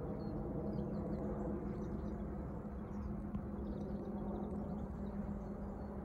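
Quiet early-morning outdoor ambience: a steady low hum and rumble, with faint, scattered high chirps of small birds.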